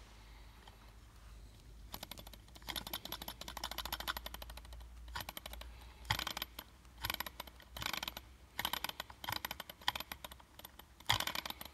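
Small model Stirling engine's piston and flywheel mechanism clattering in repeated bursts of rapid clicks as the flywheel is flicked round by hand, the loudest burst near the end. The engine will no longer run on its own because its glass cylinder has melted from too much heat.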